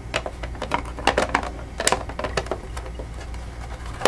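Plastic battery cover being worked onto the case of a Cyberpower CP425SLG UPS: a run of irregular light clicks and taps, plastic on plastic.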